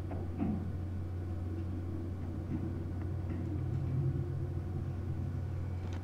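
A hand grease gun being worked on a grease fitting of the silo unloader's blower bearing: a few faint clicks and scrapes, over a steady low hum.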